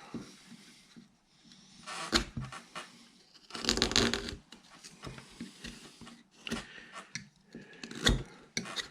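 Upsweep carving knife slicing and shaving wood in irregular strokes, the longest and loudest about four seconds in.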